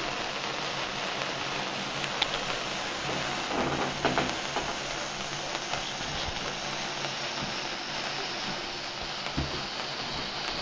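Ice fountain indoor firework burning on a cake, giving a steady hissing spray of sparks. A few light clicks and knocks sound about two and four seconds in.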